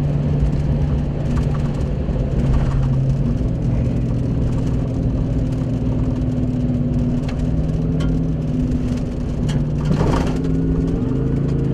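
A car or truck driving on the road, heard from inside the cabin: a steady engine hum over tyre and road rumble. The engine pitch shifts a few times as the speed changes.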